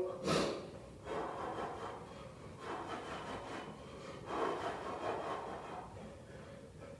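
A man breathing hard and rasping while throwing straight punches in guard, winded near the end of a high-intensity interval. His breaths come in soft swells about every second and a half, with a sharp exhaled hiss just after the start, over a light rustle of clothing and feet.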